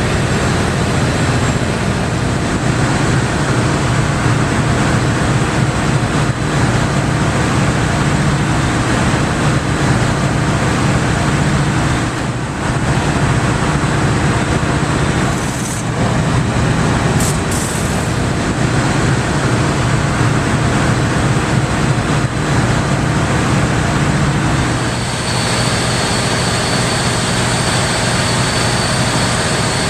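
Large natural-gas engine and reciprocating gas compressor running steadily, a loud dense drone with a strong low hum. About 25 seconds in the sound shifts slightly and a faint high whine joins.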